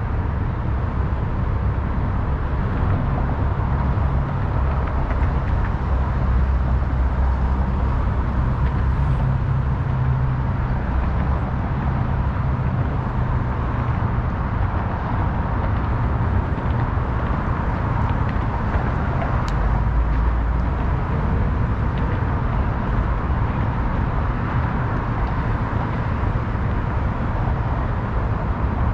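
Steady city traffic noise: a continuous low rumble of passing vehicles with a faint steady whine running through it.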